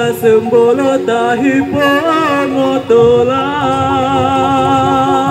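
Music with a singing voice that slides between notes and then holds one long wavering note from about three seconds in.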